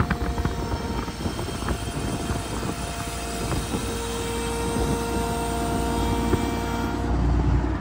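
Cummins diesel engine of a Ford F-750 utility truck running steadily, driving the hydraulics as the Altec lower boom is raised, with a steady whine over a low rumble. Wind buffets the microphone.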